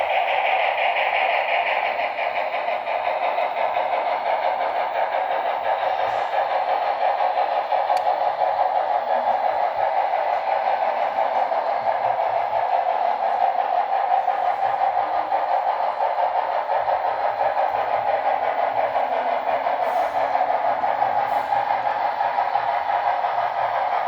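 HO scale model train, a steam locomotive pulling passenger cars, running along the track with a steady, unbroken running noise.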